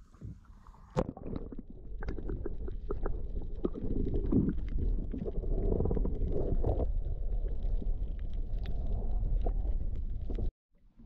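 Underwater camera audio: a muffled low rumble with many small clicks and bubbling crackles. It starts about a second in and cuts off suddenly near the end.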